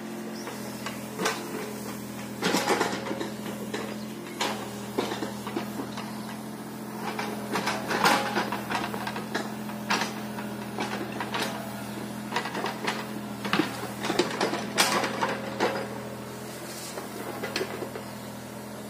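Mini excavator's diesel engine running with a steady low hum, with irregular clattering, knocking and scraping throughout.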